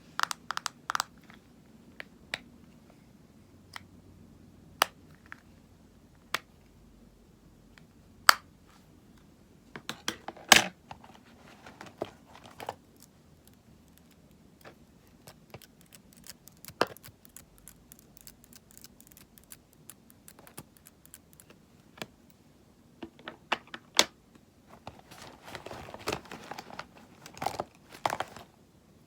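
Cosmetic items being handled close to the microphone for ASMR: scattered sharp clicks and taps, a louder cluster of taps about ten seconds in, and a run of rapid tapping and scratching near the end.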